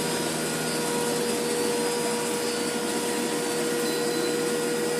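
Webasto HL90 diesel heater running steadily on its high output setting: an even blower rush with a steady hum, as the unit climbs in temperature.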